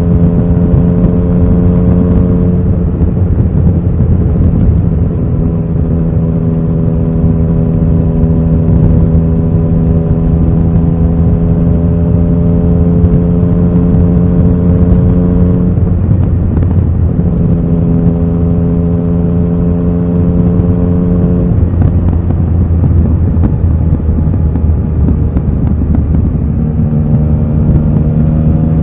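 Yamaha XSR900's inline three-cylinder engine running at a steady cruising note under way, its note breaking up briefly a few times as the throttle changes, then settling back to the same steady pitch.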